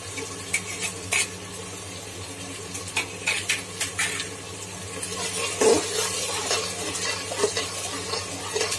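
Tomato, green chilli and ginger masala sizzling in oil in a steel pot, while a metal slotted spoon stirs it, scraping and clinking against the pot several times.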